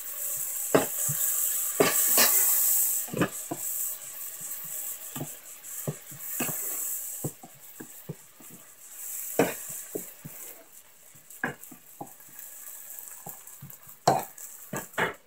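Chopped garlic, chili and tomato sizzling in a frying pan while a spatula stirs and scrapes through them, tapping against the pan again and again. The sizzle is strongest in the first half and dies down after that; a couple of sharper knocks come near the end.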